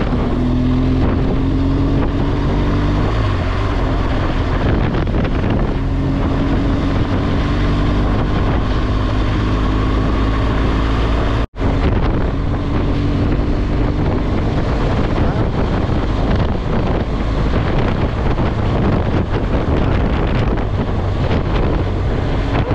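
BMW R1200GS boxer-twin engine running at road speed under heavy wind buffeting on the microphone. The engine note rises slightly in the first few seconds as the bike pulls. The sound drops out for an instant about halfway through.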